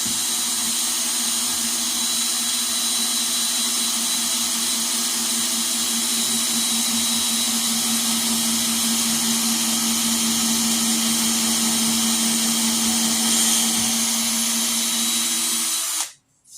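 Power drill running steadily, boring a hole through hard, seasoned red oak. It runs without a break and stops abruptly near the end.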